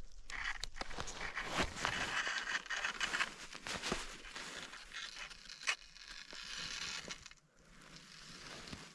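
Crunching and rustling of someone moving on packed snow, with scattered sharp clicks; it quietens about seven and a half seconds in.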